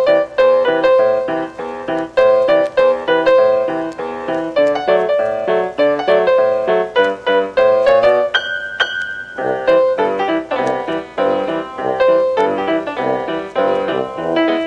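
Background piano music, a steady stream of quick notes. Just past the middle the piano stops for about a second, leaving one steady high tone.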